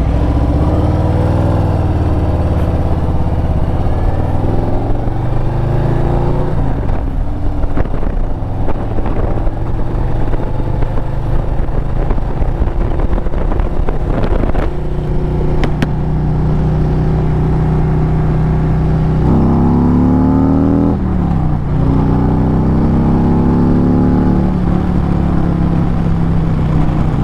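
2022 Harley-Davidson Road Glide Standard's Milwaukee-Eight 107 V-twin pulling away and riding, its pitch climbing and dropping back with each gear change. The sharpest rise comes about 19 seconds in.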